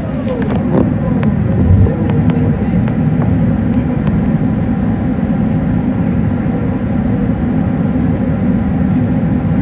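Steady low rumble of engine and airflow noise inside the cabin of an Airbus jet airliner descending on approach with its flaps extended.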